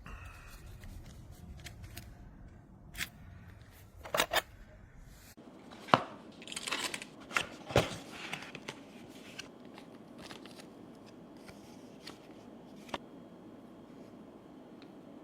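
Handling noise: scattered sharp clicks and knocks with rustling, loudest in a cluster of knocks between about four and eight seconds in.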